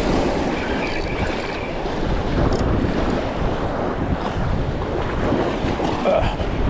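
Wind buffeting the microphone over the steady wash of surf against the jetty.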